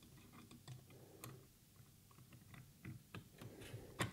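Faint, scattered clicks and light tapping as an AIO pump head and its mounting bracket are lowered and lined up over the CPU socket, with one sharper click near the end.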